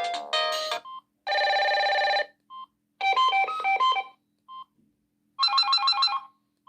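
Samsung SGH-T309 mobile phone playing its built-in alert tones in turn. A melody ends just under a second in, then three electronic tones of about a second each follow: a buzzing trill, a short stepped melody and a rapid pulsed figure. A short beep comes before each tone.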